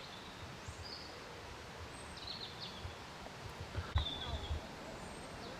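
Quiet outdoor ambience: small birds chirping a few short calls now and then over a low background hiss. About four seconds in there is a sharp click and a few low thumps, like wind or handling on the microphone.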